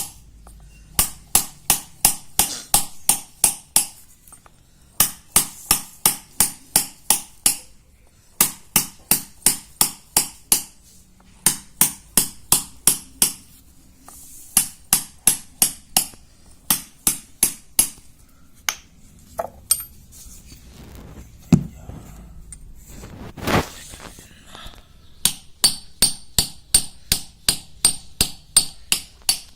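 A hammer taps a chisel into a shil pata stone grinding slab, pecking small holes into its face to repair the grinding surface. The strikes are sharp and ringing, about four or five a second, in quick runs of a few seconds with short pauses between. A few scattered heavier knocks come near the middle.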